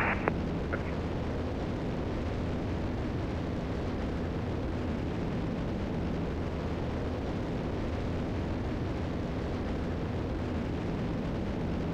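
Steady cabin drone of a Piper Seneca III's twin piston engines and propellers in cruise, an even rushing noise with a low, constant engine hum underneath.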